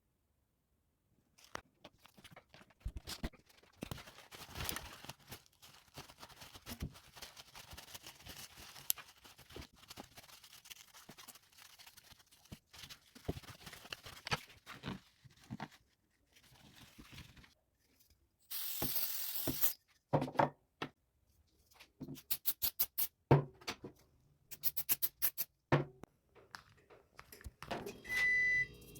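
Irregular clicks, knocks and scraping of hands working on a refrigerator, with a brief hiss about two-thirds of the way through, a quick run of sharp knocks, and an electronic beep near the end.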